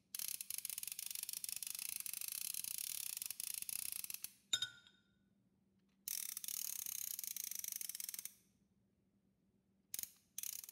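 Plastic reel of a toy fishing rod being hand-cranked: fast, dense ratcheting clicks in two long runs of about four and two seconds. Between the runs comes a single sharp click with a brief ring, and near the end two short bursts of clicking.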